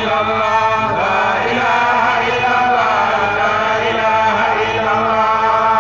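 Religious chanting: a voice chanting in long held, slightly wavering notes, running on steadily without a pause.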